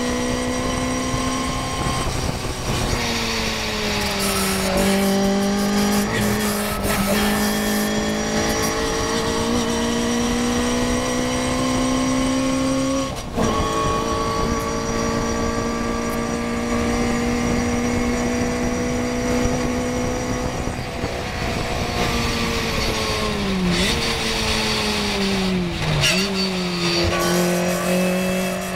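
Onboard sound of a Morgan race car's engine at full throttle, changing up a gear about two and a half seconds in and again about halfway, its pitch climbing slowly between shifts. Near the end it is lifted off and shifted down in steps for a corner, then picks up again, over the rush of wind in the open cockpit.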